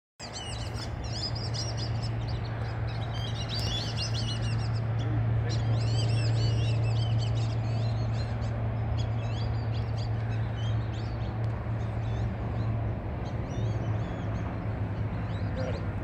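A flock of birds flying over, calling with many high, squeaky chirps that overlap, thickest in the first half and thinning toward the end. A steady low hum lies underneath.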